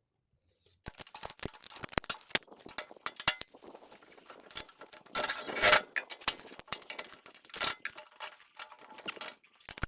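Metal parts and hand tools being handled: a quick run of clicks, clinks and knocks, with a louder scraping rattle about five seconds in.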